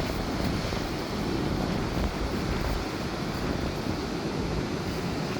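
Heavy cyclone surf breaking, a steady wash of noise, with wind buffeting the microphone.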